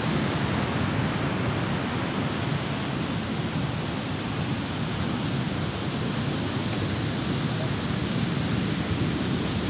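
Ocean surf breaking on a sandy beach: a steady, even wash of noise with no distinct single waves.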